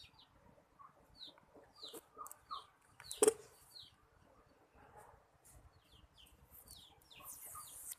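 Birds chirping in the background: many short, falling peeps, with a sharp knock about three seconds in.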